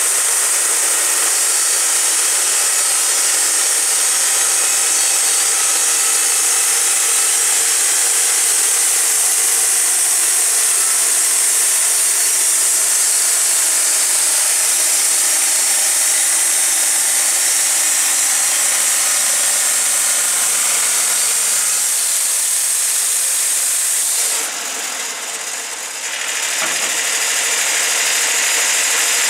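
Wood-Mizer LT40 portable bandsaw mill running, its band blade sawing along a cottonwood log as the sawhead travels the length of it: a steady, loud hiss of the cut over the engine. Near the end the sound changes and dips briefly before picking up again.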